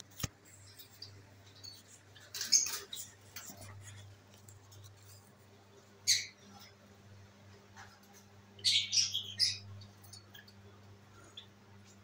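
Fischer's lovebirds giving short, high, squeaky chirps in a few brief bursts: about two and a half seconds in, again around six seconds, and a quick string of them near nine seconds. A steady low hum runs underneath, and there is a single sharp click at the very start.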